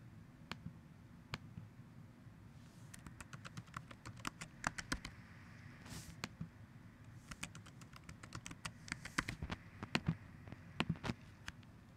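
Typing on a laptop keyboard: a couple of single key clicks, then two quick runs of clicks.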